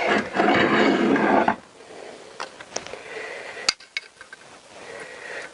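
Steel fork stanchion tube, used as a drift, scraping as it slides off a motorcycle's lower steering stem for about a second and a half, then a few light metallic clicks as the metal parts are handled.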